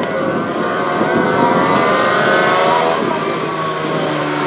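Several racing motorcycle engines running together at high revs, their overlapping pitches rising and dipping.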